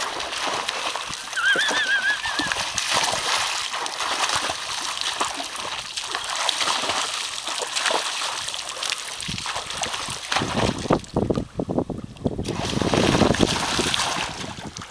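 A dog splashing through shallow lake water, with more splashing from a person wading and throwing water: a continuous, uneven wash of splashes and slosh. A short, high, wavering call sounds about two seconds in.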